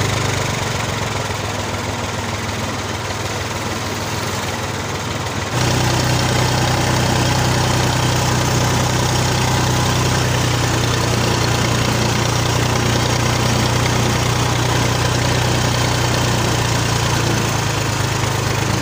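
Diesel tractor engine running steadily as the tractor moves slowly in first gear, growing louder and steadier about five seconds in.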